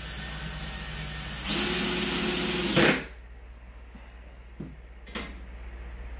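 Cordless drill driving a screw through a metal wall mounting plate. It runs slowly at first, speeds up about one and a half seconds in, and stops sharply just before three seconds. Two light knocks follow.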